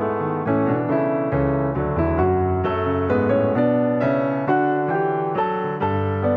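Background piano music: a melody of struck notes, about two a second, each fading after it is played.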